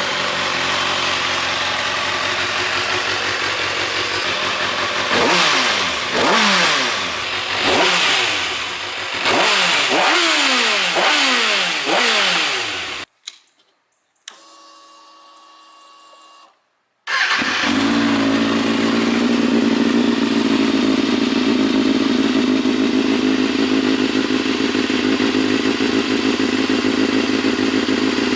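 Kawasaki ZX-6R's inline-four exhaust idling, then revved sharply about six times in quick succession, each rev rising and dropping back. After a brief break the engine resumes running steadily at idle in a second take.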